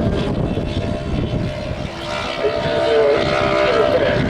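A 2014 Formula One car's 1.6-litre turbocharged V6 engine is heard out on the circuit. Its note grows louder about two seconds in, then rises and falls as the revs change through the gears.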